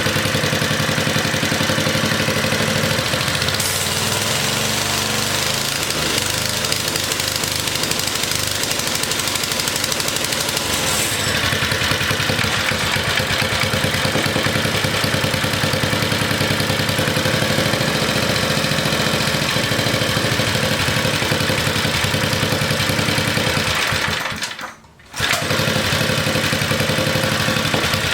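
Small Briggs & Stratton single-cylinder engine on a mini bike running steadily while its carburettor is being tuned. The engine was sputtering at the top of the throttle. The sound drops out briefly about 25 seconds in.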